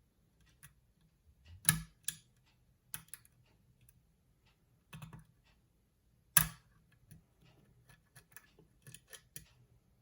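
Lock pick and tension wrench working the pins of a challenge padlock: small irregular metallic clicks and ticks, with two sharper clicks about two seconds in and just after six seconds, as pins set toward a false set.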